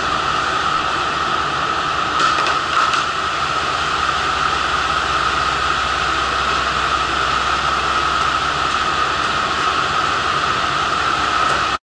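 JR Shikoku 1500-series diesel railcar idling at the platform: a steady engine and fan drone with a high-pitched hum. A few brief knocks come about two to three seconds in.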